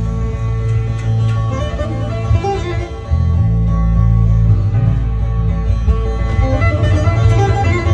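Bağlama (saz) played in an instrumental folk passage, quick plucked melody notes over a steady deep bass note that shifts about three seconds in.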